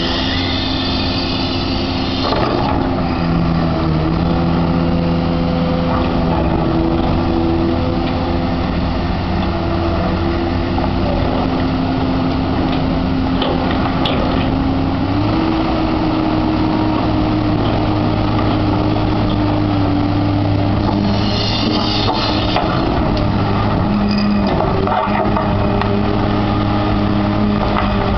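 Akerman H14BLC tracked excavator's diesel engine running steadily under hydraulic load while it digs in broken rock and concrete rubble, its note stepping up in pitch about halfway through. Two short harsher bursts, near the start and about 21 seconds in, as the bucket works the stones.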